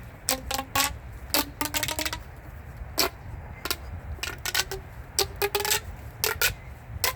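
Plastic pop tube fidget toy stretched and squashed, giving an irregular string of sharp pops and clicks, some with a short pitched ring.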